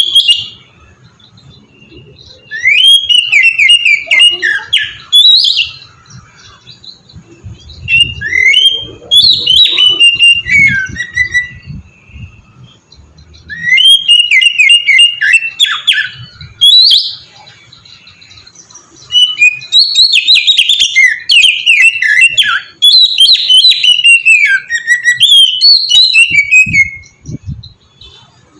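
Oriental magpie-robin (kacer) singing loudly in four bouts of fast, varied whistled and trilled phrases, with pauses of a few seconds between them.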